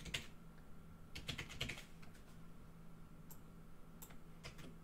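Computer keyboard typing in short runs of keystrokes, a dense run about a second in and a few single taps near the end, over a faint steady hum.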